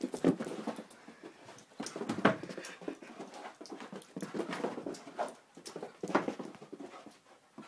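A dog playing wildly at very close range: scuffling and snuffling, with some whimpering, mixed with frequent sharp knocks and handling noise as it jostles the phone.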